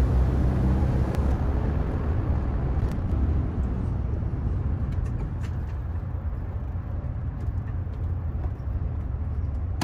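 Steady low rumble of engine and tyre noise heard inside the cabin of a vehicle driving through a road tunnel.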